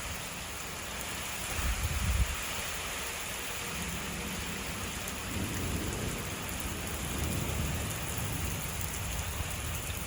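Steady rain falling in a thunderstorm, with thunder rumbling low underneath; the loudest rumble comes about two seconds in.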